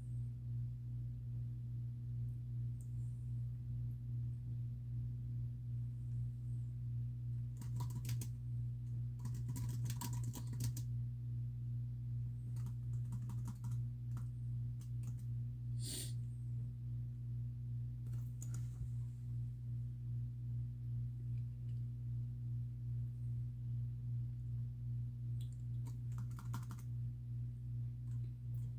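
Typing on a computer keyboard in short spells of key clicks, about six runs scattered through, over a steady low hum.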